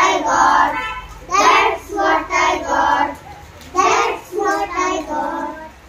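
Children singing an English action poem in short sung phrases with brief pauses between them, trailing off near the end.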